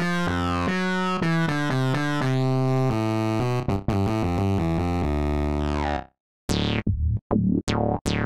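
Synthesizer demo: a sustained, fast-moving pattern of chords and notes for about six seconds, then a brief silence and a new preset of short plucked notes with a sweeping filter.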